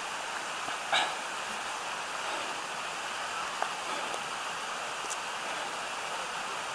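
Steady rushing of a mountain stream flowing over gravel. A single sharp click about a second in, and a couple of brief faint chirps.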